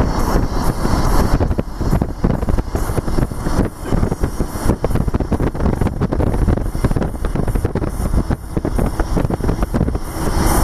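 Car driving at low speed, road and engine noise heard from inside the cabin, with wind buffeting the microphone at the side window.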